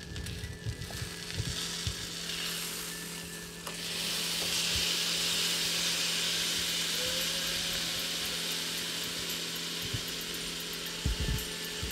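Salmon steaks and vegetables sizzling on a hot stovetop griddle pan. The sizzle gets louder about four seconds in, as liquid is squeezed from a bottle onto the hot fish, and eases off near the end.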